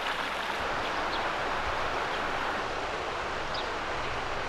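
Steady rushing outdoor background noise with a few faint, short high chirps scattered through it.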